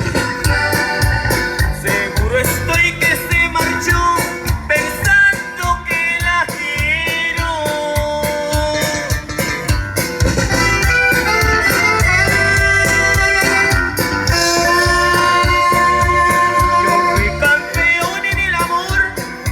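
A live band playing: drums keep a busy, steady beat under a held and sometimes bending melodic lead line.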